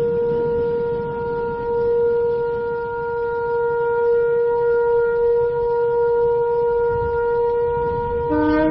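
Shofar (ram's horn) holding one long, steady note. Near the end a second, lower horn note comes in over it.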